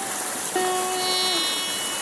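Steady rush of a mountain stream, with soft instrumental music over it: one held note begins about halfway through and stops near the end.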